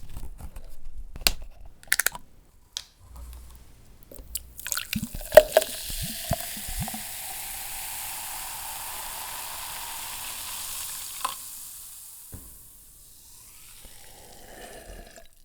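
Mountain Dew Major Melon soda being handled with a few clicks and knocks, then poured into a glass for about six seconds with a rising tone as it fills, ending with a knock and the fizz of the carbonation settling.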